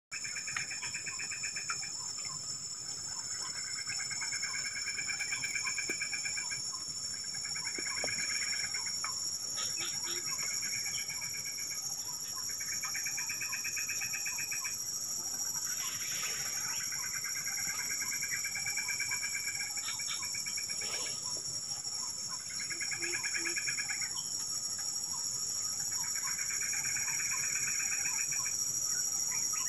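Outdoor nature ambience: a steady high-pitched insect drone with a trilling call repeated every two to three seconds.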